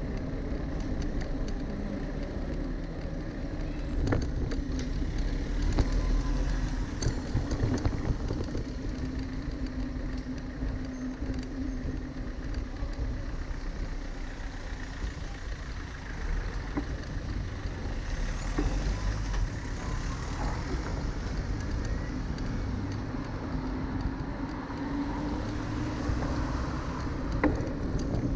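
Street noise from a moving bicycle: low rumble of tyres and wind on the microphone, with a car engine running close by and scattered clicks and rattles.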